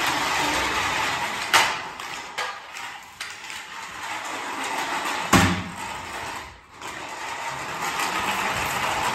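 Battery-powered remote-control toy quad bike driving on a tiled floor: its small electric motor and gears whir steadily. There are two sharp knocks, about a second and a half in and again just past five seconds.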